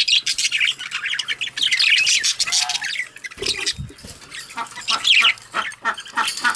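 Budgerigars chattering: rapid, overlapping chirps and squawks from several birds, with a short lull a little after halfway.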